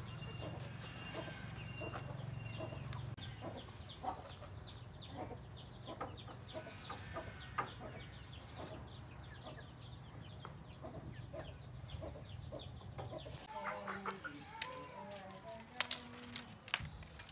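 Chickens clucking among scattered short clicks and a low steady hum, which stops about thirteen seconds in. The clucks are plainest near the end.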